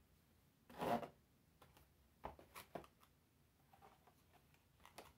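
Boxed dolls in cardboard-and-plastic window packaging being handled: a louder rustle about a second in, then a few short crinkles and taps.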